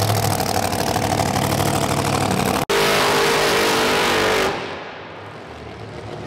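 Car engine running at raised revs, then after an abrupt break a louder, higher-pitched rev held for about two seconds, which drops away suddenly to a quieter low running.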